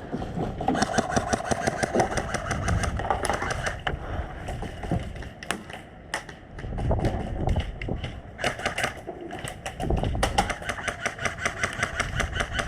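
Airsoft electric guns firing in several rapid bursts, a fast run of mechanical clicks from each gearbox cycling on full auto.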